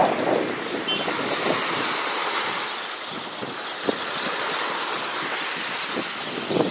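Sea waves washing onto a beach. The wash is loudest at the start and eases off over the first second or two into a steady hiss, with wind buffeting the microphone.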